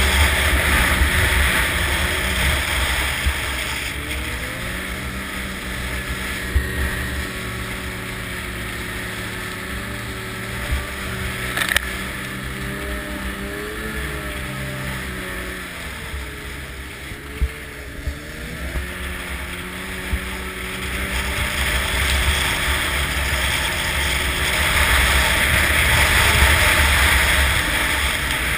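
Snowmobile engine running under way, its pitch rising and falling with the throttle, with wind buffeting the microphone. It is louder near the start and again near the end, quieter through the middle, with a few brief knocks.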